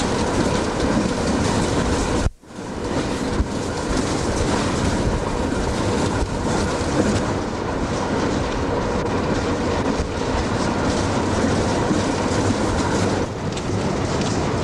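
A train running at speed, heard at an open side window: a steady, dense noise of wheels on the rails. The sound cuts out almost completely for a moment about two seconds in.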